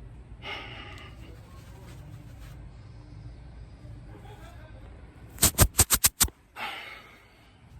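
A quick run of six sharp, loud pops or knocks within about a second, five and a half seconds in, over low background rustling.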